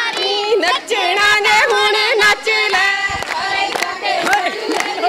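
Group of women singing a Punjabi boli together, their voices holding long, wavering notes, with hand claps scattered through the singing.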